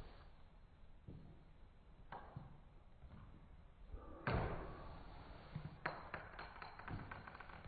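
Marbles running through a Trix Tracks plastic marble run: a knock, then a louder clack about four seconds in, followed by a quick clatter of small clicks as marbles roll and tick along the plastic track.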